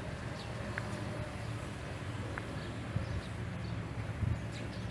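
Outdoor ambience: a steady low rumble with two brief faint chirps and a couple of soft knocks.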